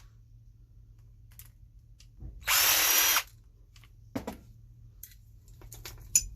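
A power drill-driver runs in one burst of just under a second, about two seconds in, backing out a screw from the compressor's casing. Light clicks and knocks of small metal parts follow.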